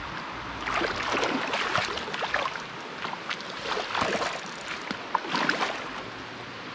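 Irregular splashing over the steady rush of a creek: a hooked brown trout thrashing at the surface as it is played toward the net.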